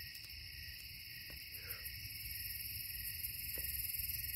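Steady, high-pitched night chorus of calling frogs and insects, humming in several unbroken bands, with a few faint clicks.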